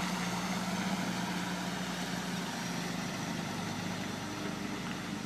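Heavy diesel truck engine of a timber-laden road train running steadily as the truck pulls away, a low hum that grows slightly fainter as it moves off.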